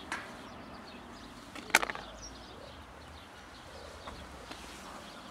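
A clear plastic snap-lock food container is set down on concrete, giving one sharp click followed by a couple of quick rattles a little under two seconds in. Faint high chirps sound in the background.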